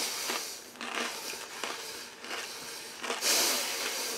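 A person chewing crunchy honeycomb toffee with closed lips: soft, irregular crunches and crackles, with a louder hiss a little after three seconds.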